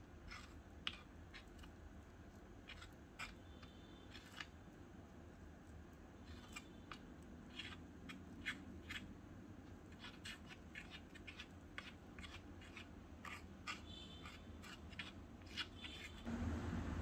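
Fingers working dough in a small metal bowl: irregular faint clicks and scrapes as fingertips and nails hit the bowl's side, some with a brief metallic ring. A louder low rumble cuts in near the end.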